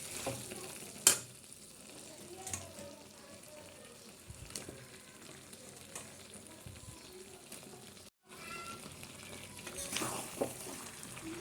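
Chicken and masala frying in a pan with a low, steady sizzle, a spatula stirring and scraping, and a sharp knock of the utensil about a second in; the sound drops out briefly near eight seconds, and the stirring clatter grows louder near the end.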